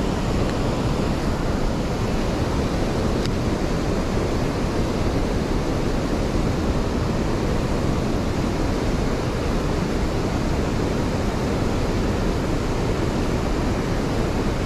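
Steady rushing noise of wind on the microphone and moving water, even throughout with no distinct events.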